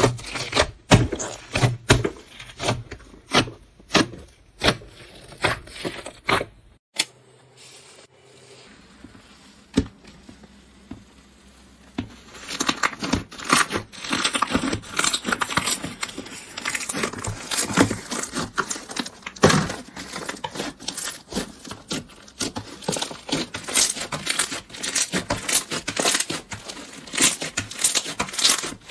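Slime being squeezed and pressed by hand, giving sharp crackling pops. There is a quieter stretch about seven seconds in, then dense, rapid crackling.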